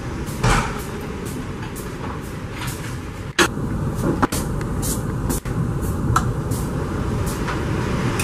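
Metal serving tongs clinking and scraping against plates as starters are served, a series of short sharp clicks over a steady low background noise.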